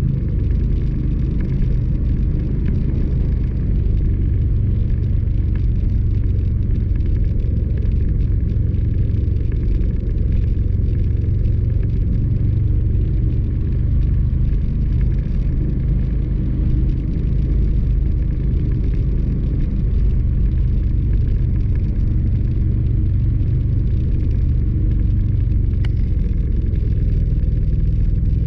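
A vehicle driving steadily along an unpaved gravel road: a continuous low rumble of engine and tyres on the gravel.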